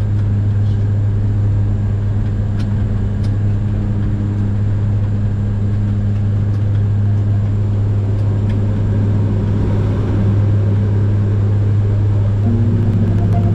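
Bombardier Q400 (Dash 8) turboprop in flight, heard inside the cockpit: the six-bladed propellers of its two engines make a loud, steady deep drone over airflow noise. A second, higher tone comes in near the end.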